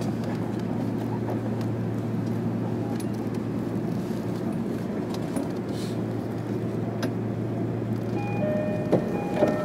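Running sound of a JR Kyushu 305 series electric train, heard from inside the motor car: a steady hum with rail and wheel noise. From about eight seconds in, several steady high-pitched tones come and go over it.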